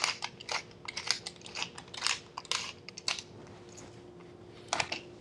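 Pepper mill being twisted by hand, grinding peppercorns in a run of short gritty crunches about three a second. It stops for a moment, then gives one more quick grind near the end.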